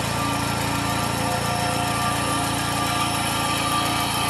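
Satoh S650G tractor's Mazda 1.0-litre four-cylinder gasoline engine running steadily, heard up close at the engine bay.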